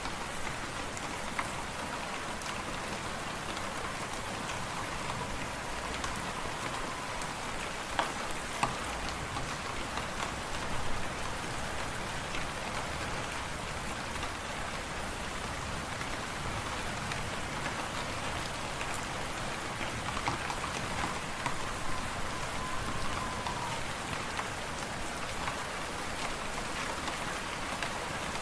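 Wood fire crackling in a fireplace: scattered sharp pops over a steady hiss, with a faint wavering whistle of wind in the background.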